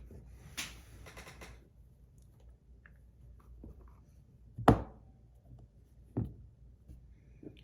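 Handling sounds as fidget spinners are brought out and set down on a hard surface: a short rustle early on, then a sharp knock near the middle, the loudest sound, a second knock about a second and a half later, and a few light ticks.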